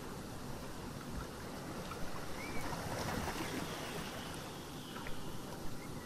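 Ocean waves washing on a shore: a steady wash of surf that swells somewhat around the middle.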